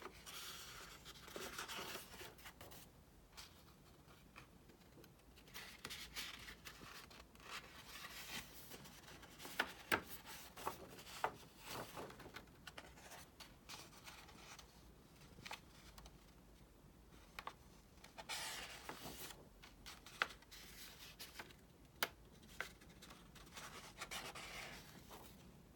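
Paper pages of a booklet being turned and rustling in bursts, with a hand sliding over the paper and a few sharp ticks, the loudest about ten seconds in.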